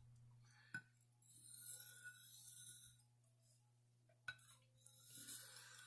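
Faint strokes of a Buck 119 knife blade drawn across a soft Arkansas whetstone, a soft high hiss in two stretches, with two light clinks, one about a second in and one about four seconds in. A low steady hum runs underneath.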